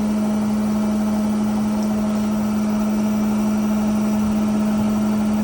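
Steady machine hum at one constant low pitch, unchanging throughout.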